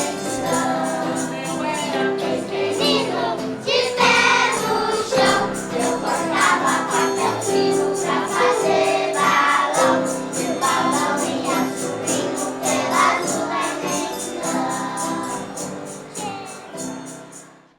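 Festa junina song with a group of voices singing over a steady beat, fading out over the last couple of seconds.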